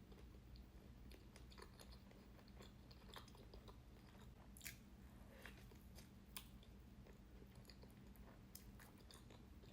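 Faint close-up chewing of a soft strawberries-and-cream donut: scattered small wet mouth clicks, with two slightly louder ones around the middle, over a steady low hum.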